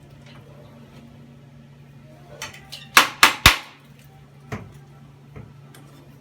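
Three sharp knocks in quick succession about three seconds in, then a fainter one a second later, over a steady low hum.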